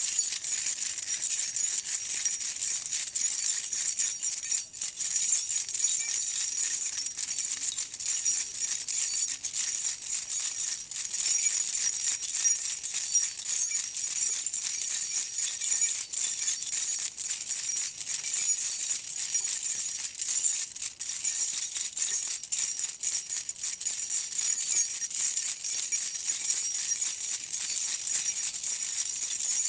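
A bunch of metal keys jangled and shaken nonstop, a dense high metallic jingling with brief dips.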